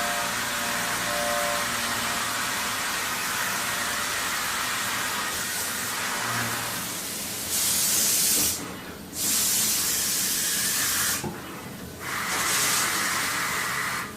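CNC machining with a steady hiss and faint hum. About halfway through come three loud bursts of hissing spray, each lasting one to two seconds.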